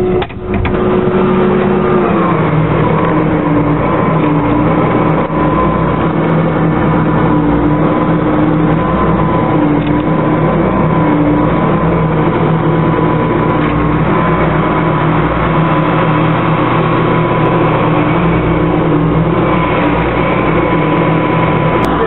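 Claas Lexion 520 combine harvester running under load, heard from its operator's platform: a loud, steady machine drone whose tone drops in pitch about two seconds in, then holds.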